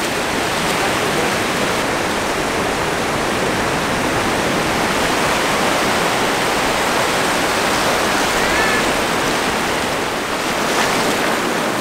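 Steady rush of small waves breaking and washing over shallow water at the water's edge.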